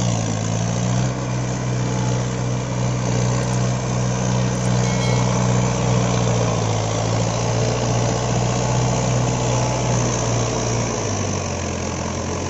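Mahindra 555 DI tractor's diesel engine running hard, steady and loud, as the tractor pushes through deep paddy-field mud. The engine note steps down to a lower pitch about eleven seconds in.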